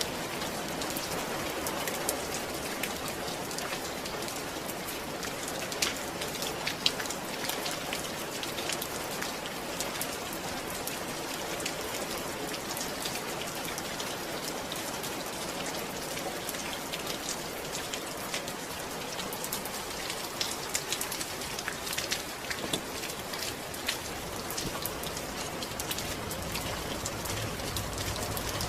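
Steady rain falling, with many separate drops ticking sharply through the hiss. A low rumble comes in near the end.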